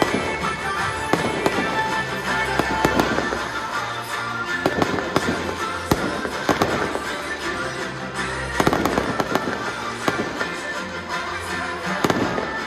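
A fireworks display: shells and rising comets banging and crackling in irregular quick succession, with music playing underneath.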